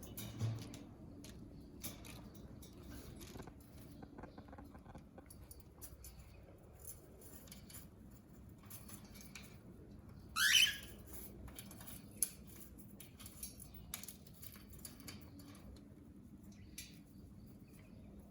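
Cockatiels bathing in a shallow dish of water: faint, irregular splashing and pattering of droplets as they dip and flutter. About ten seconds in, one cockatiel gives a short call that rises in pitch.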